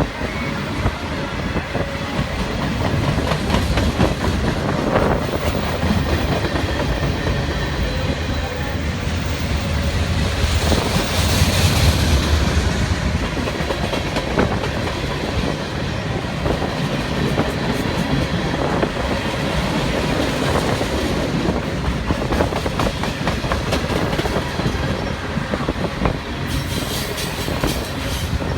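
A freight train's cars rolling past close by: a steady rumble with wheels clacking over the rail joints. It grows louder and hissier about ten to thirteen seconds in.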